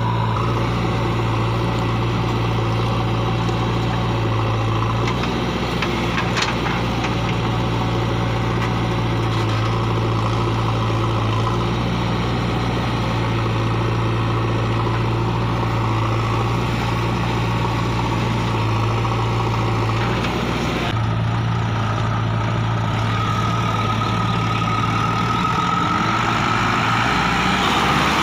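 Heavy diesel engine running steadily, without revving. Near the end a higher whine rises over it.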